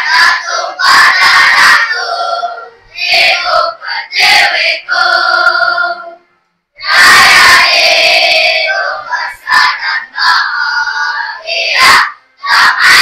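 A group of schoolchildren singing an anthem together, loud and close, in sung phrases with a brief break about six seconds in.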